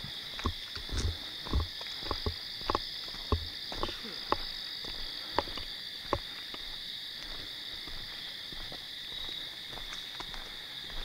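Footsteps crunching irregularly through dry leaf litter on a forest floor; they stop about six seconds in. A steady high-pitched night chorus hums behind them throughout.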